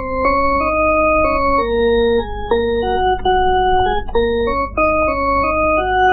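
Electronic organ music: a melody of held notes over chords, changing a few times a second, with a steady low hum underneath.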